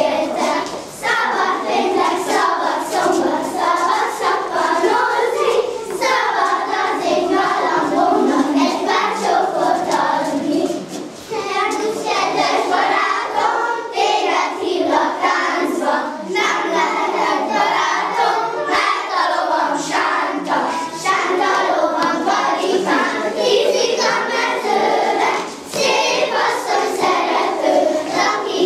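A group of young children singing a song together in unison while they dance, with many light taps of feet on the floor throughout.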